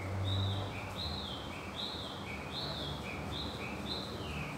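A bird calling over and over: short chirps that alternate between a higher and a lower note, about two or three a second, each dipping in pitch at its end. A steady low hum sits beneath.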